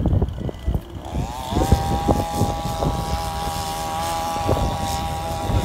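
A motor's drone that rises in pitch about a second in and then holds steady, over wind buffeting the microphone.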